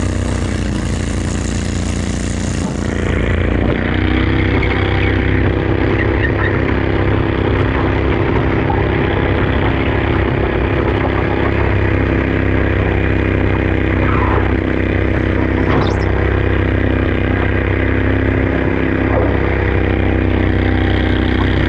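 Stock garden tractor engine running flat out under heavy load while pulling a weight sled, a steady drone that holds one pitch. A rushing hiss sits over it for the first three seconds.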